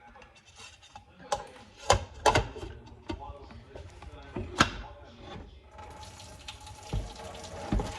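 Kitchen clatter: a series of sharp knocks and clunks of utensils or a lid, then a kitchen tap turned on about six seconds in, water running steadily into the sink.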